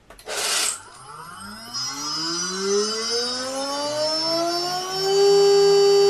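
A 2.2 kW water-cooled high-frequency CNC spindle, driven by a VFD, spinning up from standstill: a whine with several overtones rises steadily in pitch for about four seconds, then holds at a loud, steady high pitch at full speed. It runs dry, without its cooling water. A short burst of hiss comes just before it starts to turn.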